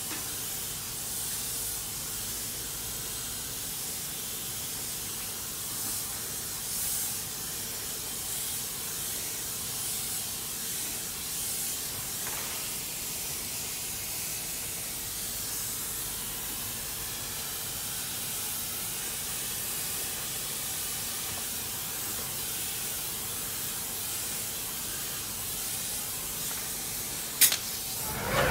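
Polyurea coating spraying from a Graco AP Fusion plural-component spray gun, a steady hiss of the atomised spray with small swells as the gun is worked. A single sharp click comes just before the end.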